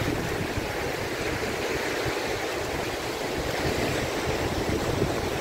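Small sea waves breaking and washing up a sandy beach, a steady surf hiss with a low rumble beneath.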